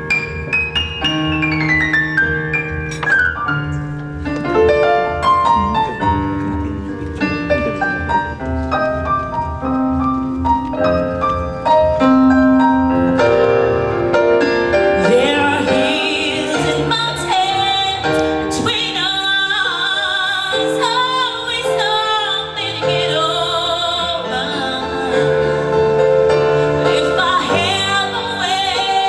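Piano playing a slow passage on its own, then a voice singing with vibrato over the piano from about halfway through.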